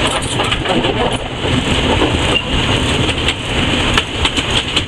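Steam locomotive under way, heard from inside its cab: a loud, steady running noise of the engine and wheels on the rails, with rattles and several sharp clicks in the second half.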